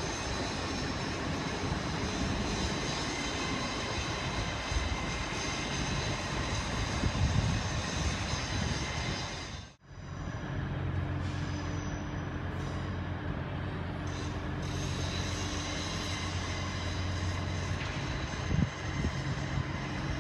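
Electric trains running through a station. First a Hitachi Azuma (Class 800/801) pulls away with a steady rumble. The sound breaks off suddenly about halfway at a cut, and a Great Northern Class 387 electric multiple unit follows, running in with a steady low hum.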